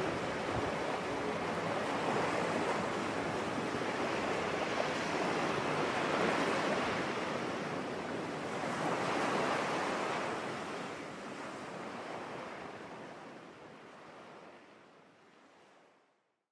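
A steady rushing noise like surf, swelling and ebbing a couple of times, then fading out slowly to silence near the end.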